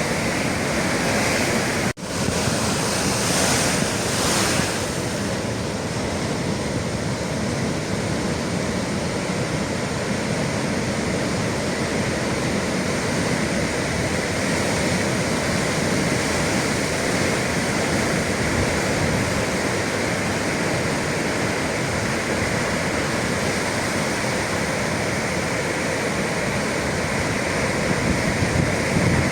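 Ocean surf: a steady rush of breaking sea waves. The sound drops out for an instant about two seconds in.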